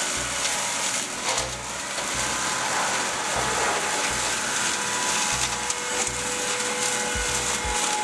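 McConnel boom-arm flail mower on a tractor, cutting grass: a steady whirring, shredding machine noise. Background music with a regular low beat plays along with it.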